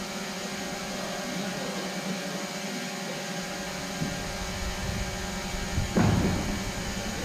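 Steady hum of a sports hall, with one loud thud about six seconds in as padded sparring gear drops onto the floor mat.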